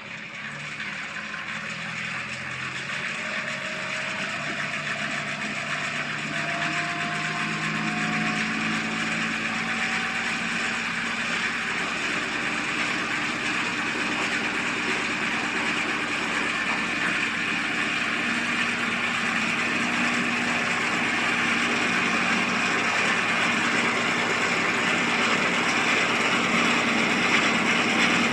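Kubota LX2610 compact tractor's diesel engine running with the front-mounted snowblower. Its pitch rises over the first several seconds as it speeds up, then holds steady and grows gradually louder.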